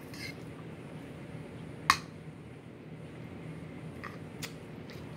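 Eating sounds from pasta being worked with a fork in a bowl: a few short sharp clicks, the loudest about two seconds in, over a steady low hum.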